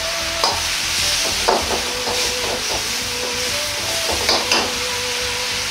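Ground pork and vegetables sizzling hard in a wok over a high gas flame as they are stir-fried with a metal ladle. The ladle knocks and scrapes against the wok several times over the steady hiss of the frying.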